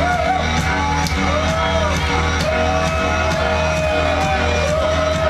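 Electronic dance music played loud over a sound system, a steady pulsing bass under high percussion hits about twice a second and a held, gliding melody line, with a crowd shouting and whooping over it.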